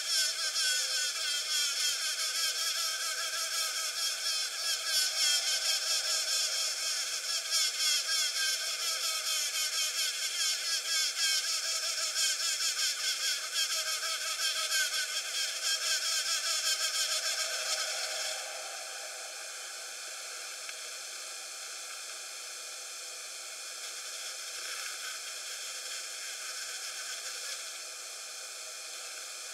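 Black-and-yellow mud dauber buzzing as it works mud at its nest: a wavering, pulsing buzz that stops suddenly about 18 seconds in, leaving a steady hiss.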